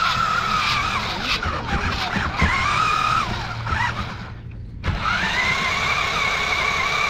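Whine of a Maisto radio-controlled monster truck's electric motor and gearbox as it drives over grass, its pitch wavering with the throttle. It cuts out briefly about five seconds in, then comes back rising.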